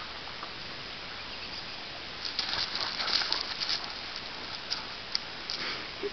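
Paws of Bernese mountain dogs crunching and scuffing on loose gravel in quick, uneven clusters of crackles starting about two seconds in, over a steady background hiss.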